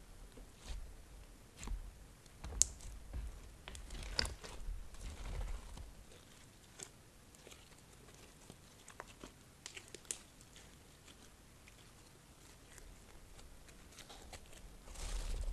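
Slime being kneaded and stretched by hand, giving irregular sticky clicks and small crackling pops, busier in the first half and sparser later.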